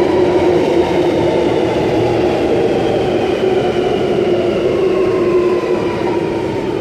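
Alstom Metropolis driverless metro train pulling into the platform: steady running noise under a traction-motor whine in several tones that slowly fall in pitch as the train brakes.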